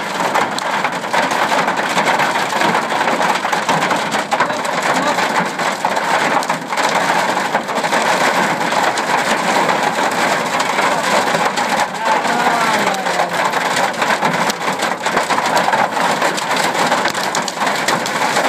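Heavy hail pelting down: a dense, continuous clatter of countless hailstones striking, heard from inside a car.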